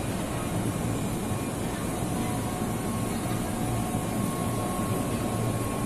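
Steady low hum and rumble of a railway station, from the electric commuter train standing at the platform. A faint, thin whine joins about two to three seconds in.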